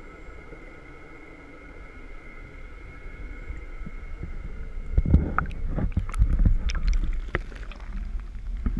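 Underwater in an aerated seaweed tank: bubbling water with a faint steady hum. From about five seconds in, loud sloshing, knocks and rumbling as the waterproof camera is handled and lifted out through the surface.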